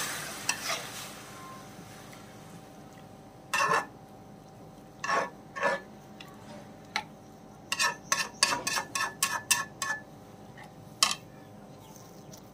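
A metal spatula clinking and scraping against a metal cooking pot while stirring a watery vegetable-and-egg mixture. A sizzling hiss from water meeting the hot pan dies away over the first couple of seconds; after that come scattered sharp clinks, with a quick run of about eight together a little past the middle.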